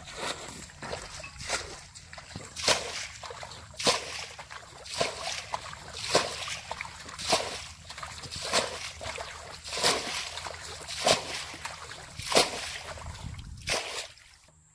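Muddy pond water splashing as a plastic bucket bails it out, one scoop-and-throw splash about every second and a quarter, stopping near the end.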